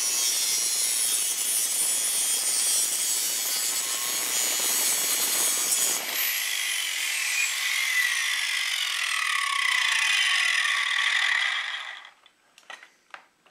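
An angle grinder cuts into a thin, soft steel plate with a loud, steady grinding noise. About halfway through, the grinding stops and the motor's whine falls in pitch as it winds down, dying out near the end. A few light knocks follow as the tool is set down.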